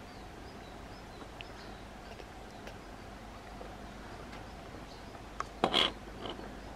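Quiet forest ambience with faint, scattered bird chirps, and one brief, much louder noise about five and a half seconds in.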